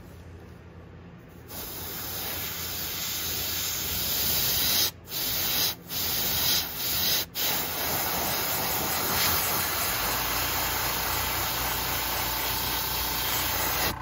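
Airbrush spraying paint onto a lure: a steady hiss of air and paint that starts about a second and a half in, cut by a few short breaks between about five and seven and a half seconds.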